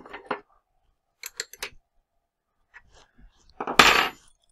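Light clicks and taps of an edge-finder probe being fitted into a mini mill's spindle, with a quick run of them about a second in. Near the end there is a short, louder rustling scrape.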